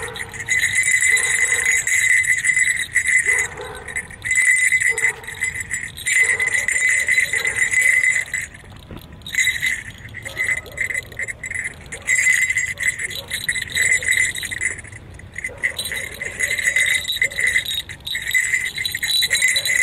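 Small brass jingle bells on the horns of a jester mask, shaken and jingling in repeated spells of a second or two with short pauses between.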